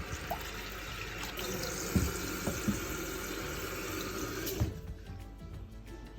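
Water tap running to fill a dog's water bowl, a steady rush that stops when the tap is turned off about four and a half seconds in, with a few light knocks along the way.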